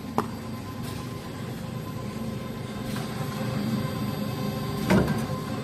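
Paper angle board machine running steadily, with a sharp knock about a quarter second in and a louder clunk near the end.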